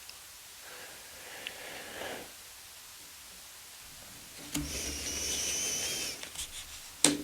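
Thick tarot cards being handled one by one: a soft sliding rustle about a second in, a longer hiss with a faint wavering whistle around five seconds, and a sharp tap near the end.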